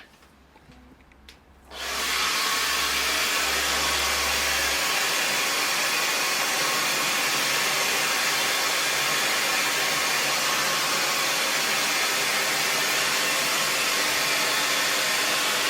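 Handheld hair dryer switched on about two seconds in, then running steadily and loudly, blowing on hair.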